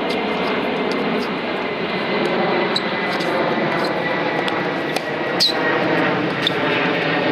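Tennis ball struck by rackets and bouncing on a hard court during a rally: sharp pops, the loudest about five and a half seconds in with a short ring of the strings. They sit over a loud, steady background hum.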